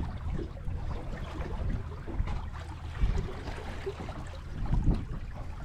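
Wind rumbling on the microphone and sea water lapping against the hull of a small open boat, with a couple of brief knocks.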